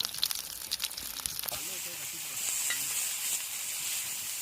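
Chicken sizzling as it cooks: sharp crackling pops for about the first second and a half, then a steady hiss.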